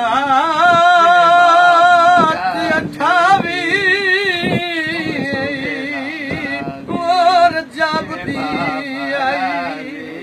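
A man singing a long, wordless melismatic line with a strong, wide vibrato, loudest in the first couple of seconds, over a steady low note held underneath.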